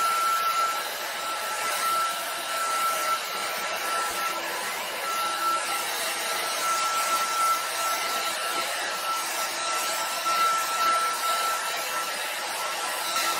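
Handheld hair dryer running steadily: a rush of air with a constant high whine, blowing straight down onto wet acrylic paint.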